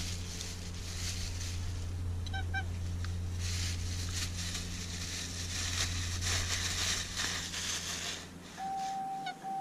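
Two short, nasal duck quacks about two seconds in, over a steady low hum and patches of hissing rustle. Near the end the hum fades and a steady held tone begins.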